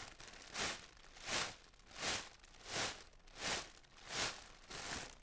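A large plastic bag rustled in a steady rhythm, seven crinkling swishes about every 0.7 seconds. Its size gives it a lower sound than smaller bags.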